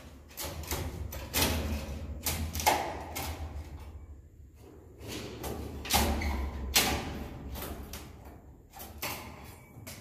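Irregular knocks and scrapes, about eight over several seconds, from work on wooden ceiling planks while swiftlet nests are pried off them.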